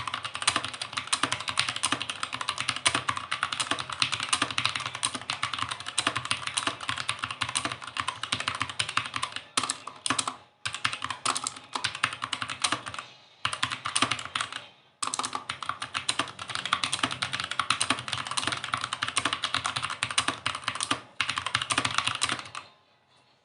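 Fast typing on a mechanical keyboard: a dense stream of key clicks, broken by a few brief pauses, that stops shortly before the end.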